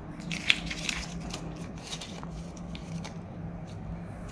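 Polymer banknotes being handled and shuffled by hand: crisp rustles and clicks, densest about half a second to a second and a half in, then fainter.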